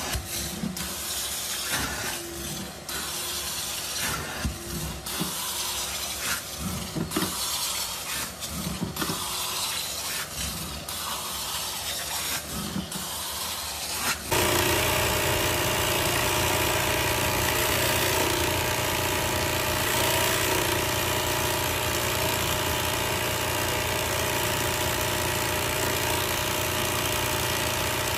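Carpet-cleaning extraction wand drawn over a stair carpet in uneven strokes, its suction hissing. About halfway through it gives way suddenly to a louder, steady machine hum with hiss.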